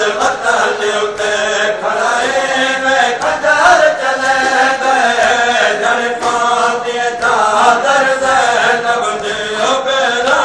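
Men's voices chanting a noha, a Shia mourning lament, in a continuous melodic chant, accompanied by the rhythmic slaps of matam chest-beating.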